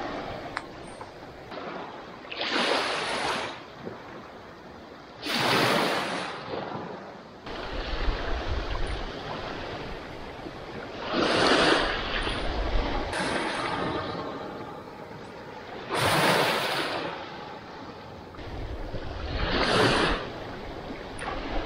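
Small waves washing onto a sandy beach, a rush of noise that swells and fades every few seconds. Low gusts of wind on the microphone come in between.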